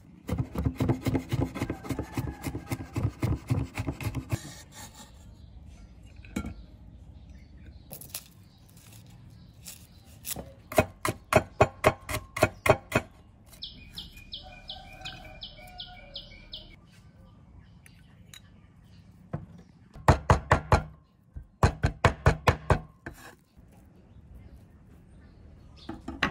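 Steel cleaver chopping fast on a bamboo cutting board, mincing garlic and shallots: three runs of quick chops a few seconds each, about six chops a second.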